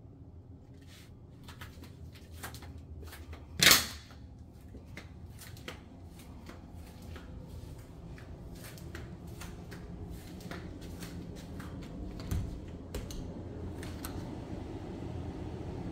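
Footsteps and handling clicks while walking on a tile floor, about two a second, with one loud sharp knock about four seconds in. Near the end a louvered closet door is opened with a low thump, and a steady low whoosh grows louder.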